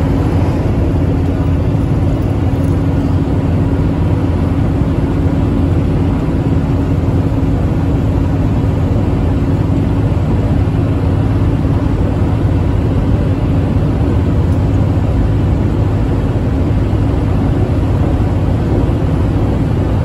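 Intercity bus cruising at motorway speed, heard from inside the cab: a steady engine drone with a constant low hum, mixed with tyre and road noise, unchanging throughout.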